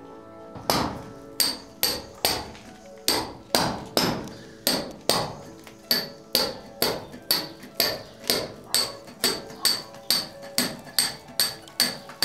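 Hammer blows on a chisel, cutting pipe channels into a plastered masonry wall: steady, ringing strikes at about two and a half a second, starting a little under a second in.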